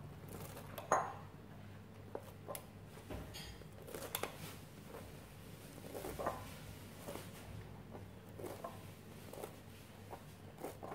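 Kitchen knife cutting soaked glass noodles on a plastic cutting board: irregular short knocks of the blade striking the board, about one every half second, the loudest about a second in.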